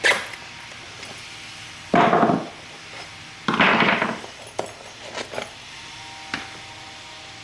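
Bench work on a leather ball glove's lacing during a lace adjustment: a sharp knock at the start, two louder half-second scraping noises about two and three and a half seconds in, then a few light clicks.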